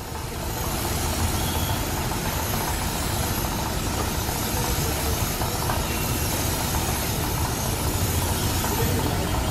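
Compressed-air paint spray gun hissing steadily as the first coat of paint is sprayed onto a car door, starting just after the beginning, with a steady low mechanical drone underneath.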